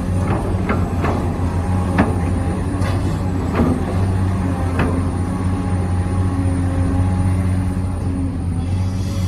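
Radio-controlled model construction machine running, its motors giving a steady low hum that shifts in pitch now and then as the load changes. Sharp clicks and knocks are scattered through it, as of material being scraped or dropped.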